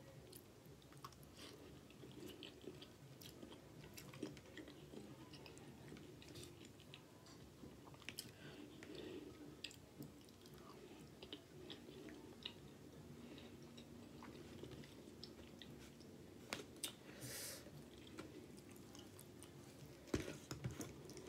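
Faint close-up chewing and wet mouth sounds of someone eating sauced pasta, with scattered small clicks over a faint steady hum. Near the end come a few louder sharp sounds as a piece of garlic bread is pulled apart.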